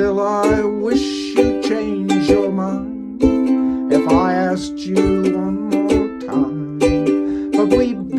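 Folk song played on a plucked string instrument, picked notes ringing over a steady low note, with a singing voice carrying a line in places.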